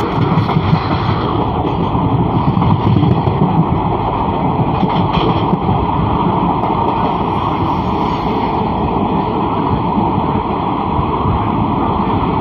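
Passenger train running along the track, heard from an open coach doorway: a loud, steady rush of wind mixed with the rolling noise of the coaches.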